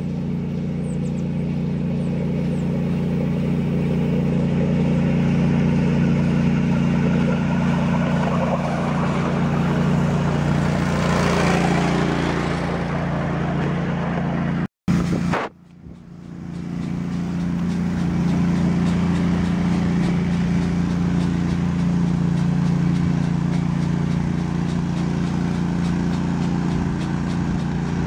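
A small engine running steadily with an even low hum. A broader rushing noise swells and fades around ten to twelve seconds in, and the sound cuts out for a moment about fifteen seconds in before the hum returns.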